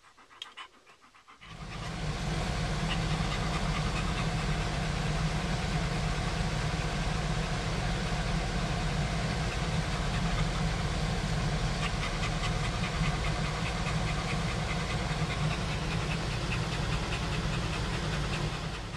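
A German Shepherd dog panting inside a pickup truck cab, over a steady low engine and road rumble that sets in about a second and a half in.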